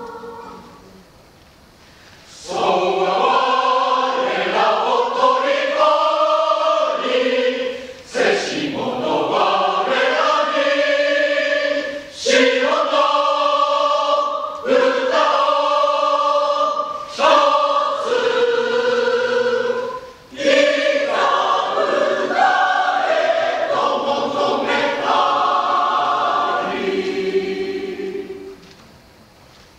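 Mixed-voice choir singing unaccompanied in four parts, in a Japanese translation. A brief hush just after the start gives way to full sustained phrases separated by short breaks, and the singing fades to a hush near the end.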